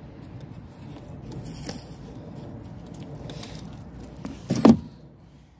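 Steel cable being handled and moved, with light metallic clinking over a low steady rumble. A short, louder sound about four and a half seconds in.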